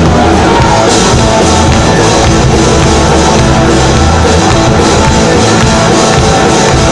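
Live rock band playing loudly: keyboard, electric guitar and drum kit, steady throughout.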